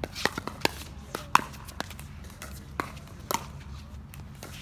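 Pickleball rally: a string of sharp pops as paddles strike the plastic ball, irregularly spaced over the few seconds, the loudest about a second and a half in.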